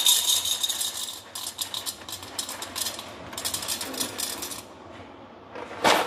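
Whole coffee beans poured into a small cup in three short pours, rattling as they land, while a 20 g dose is weighed out.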